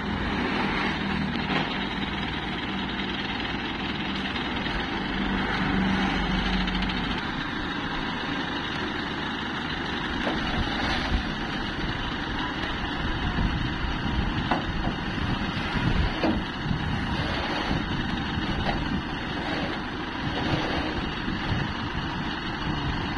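Mobile crane's diesel engine running steadily while a heavy tank is lowered, its note dropping away about seven seconds in. After that a steady background rumble with a few sharp knocks.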